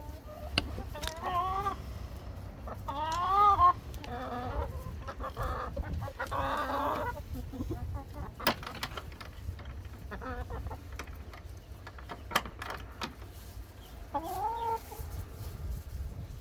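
Chickens clucking and calling, several short calls that bend up and down in pitch, the loudest about three seconds in, with a few sharp clicks between them.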